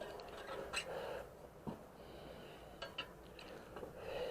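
Metal tire lever clinking and scraping against the motorcycle wheel rim as the front tire bead is pried on: a few short sharp taps and knocks.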